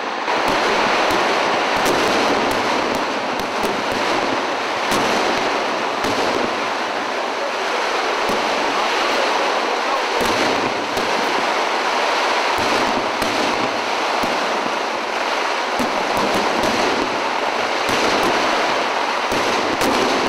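Fireworks display: a dense, continuous crackle and rumble of many firecrackers and shell bursts, with sharp cracks scattered throughout.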